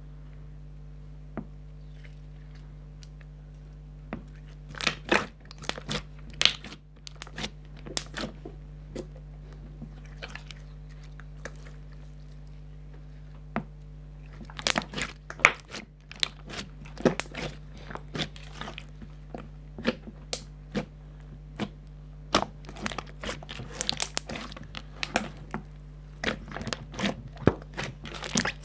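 Slime being squeezed and poked by hand, giving irregular runs of sharp crunchy crackles and pops, with pauses between handlings, over a steady low hum.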